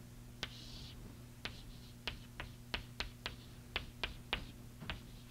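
Chalk writing on a blackboard: an irregular run of sharp taps as the chalk strikes the board, with a short scratch of a stroke about half a second in.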